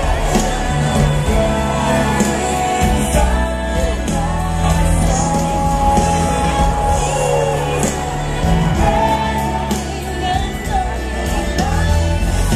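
Orca show soundtrack: pop-style music with a singing voice over a steady bass line.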